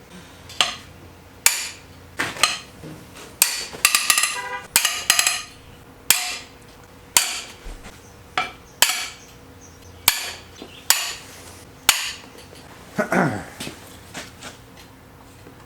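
Hammer blows on metal engine parts, about one strike a second, some with a short metallic ring, as parts are knocked loose while the engine is being torn down.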